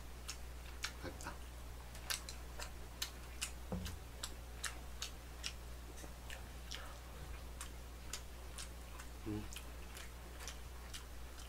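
Faint wet clicking and smacking of a mouth chewing pan-fried oyster pancake, about two to three clicks a second, irregular, over a low electrical hum, with a couple of soft low thuds.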